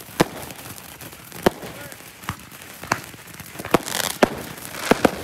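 Firecrackers going off, about eight sharp bangs at uneven intervals, over the steady crackling fizz of a hand-held sparkler stick throwing sparks.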